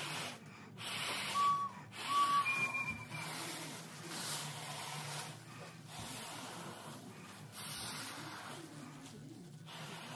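Repeated hard breaths blown through a straw into a trash-bag bagpipe, air rushing in and out. The soprano recorder drone gives a few short, thin whistles in the first few seconds as air leaks through it.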